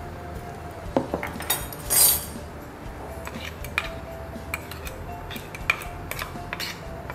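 A metal spoon clinks and taps against plastic containers as dry seasoning is scooped out and spooned into a blender cup. There is a short scrape about two seconds in, and a run of small ticks and clicks near the end.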